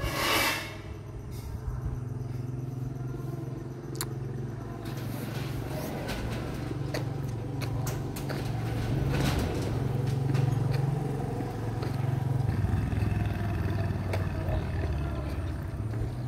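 Road traffic with motorbike engines running steadily, with a brief rush of noise right at the start.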